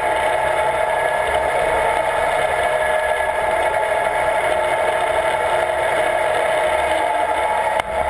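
Bulldozer's diesel engine running steadily under way, heard loud from inside the operator's cab.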